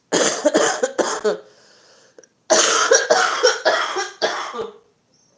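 A woman coughing hard in two fits of rapid coughs, with a short hissing breath drawn in between. The cough is persistent.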